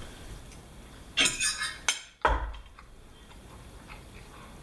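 A fork clinking against a dinner plate in a short clatter about a second in, followed by a sharp click and a dull thump just after two seconds; otherwise low room noise.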